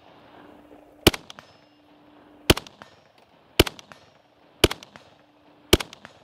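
Steyr AUG 5.56 mm bullpup rifle fired in aimed semi-automatic single shots, five shots about a second apart. Each report is followed by a brief echo.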